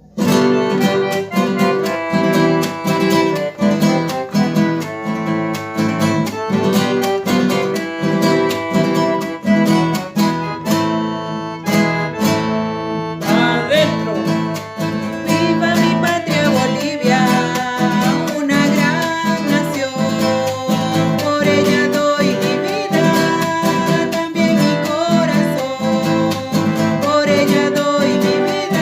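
Background music led by a strummed acoustic guitar in a steady rhythm, with a singing voice coming in about halfway through.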